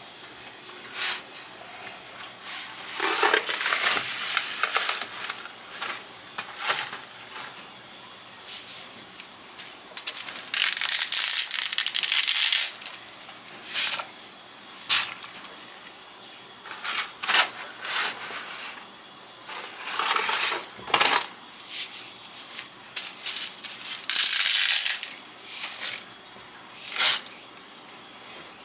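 Dry linguine being handled and dropped into a pot of hot water on the stove: scattered clicks and knocks of the hard pasta and the pot, with a few longer rustling bursts of the packaging.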